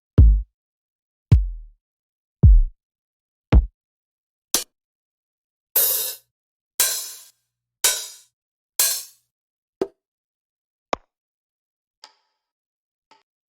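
House drum one-shot samples played one after another. First come four deep kick drums about a second apart, then four bright open hi-hats that each ring out briefly, then short, small percussion hits near the end.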